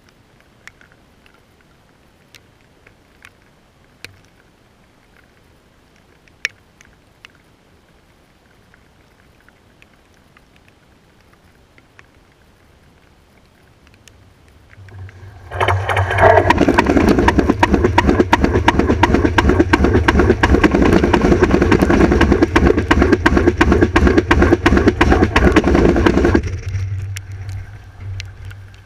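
A Renfe S730 Alvia hybrid train, two units coupled, passes right over the rails at rail level. The first half holds only faint scattered ticks. About halfway in it builds quickly into about ten seconds of loud rushing rumble with rapid wheel-on-rail clatter, which drops off and fades as the last car clears.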